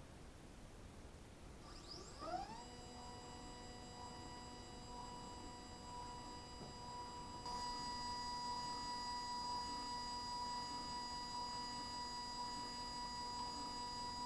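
PrimaLuceLab Esatto 2-inch focuser's stepper motor running: a faint steady whine of several pitches that rises in pitch as the motor starts about two seconds in, then holds, a little louder from about halfway.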